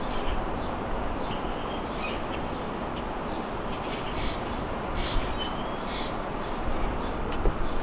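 Outdoor background: a steady low rumble with birds chirping in short calls throughout, and a light click near the end.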